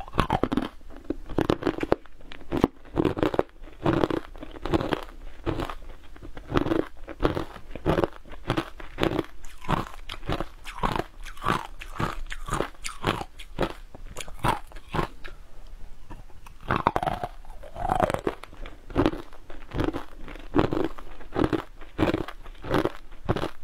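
Close-miked crunching and chewing of a crumbly green frozen powder eaten by the spoonful: a steady run of crisp crunches, a few each second, with wet mouth sounds between them.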